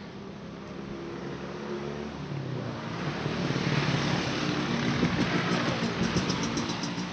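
A motor vehicle driving past on the street. Its engine hum and road noise grow louder to a peak about halfway through, then ease off a little.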